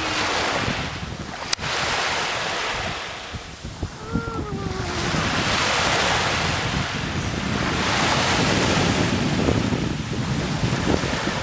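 Small waves washing in over a sandy shore in swells every few seconds, with wind buffeting the microphone. A sharp click about a second and a half in.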